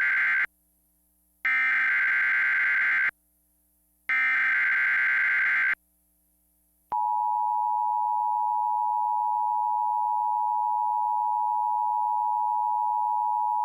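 Emergency Alert System broadcast: the tail of one SAME digital header burst and two more buzzy data bursts, each about a second and a half long and a second apart, then the steady two-tone EAS attention signal (853 and 960 Hz) starting about seven seconds in. Together they signal the start of an emergency alert, here a tornado watch.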